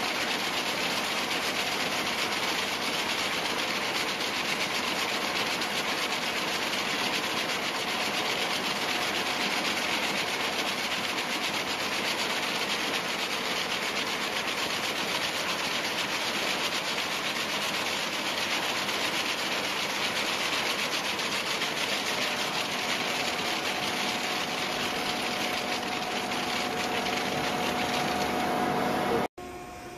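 Tex-inter radial wire braiding machine running at speed, a steady rushing, rubbing mechanical noise from its many wire carriers turning around the hose core. It cuts off suddenly near the end.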